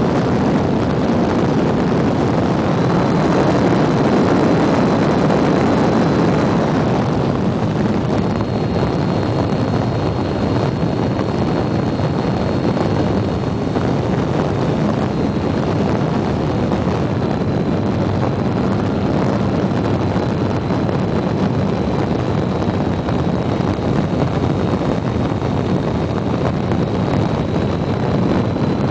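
RC model airplane's engine and propeller running steadily in flight, mixed with heavy wind rush on the onboard camera's microphone, with a faint steady high whine above.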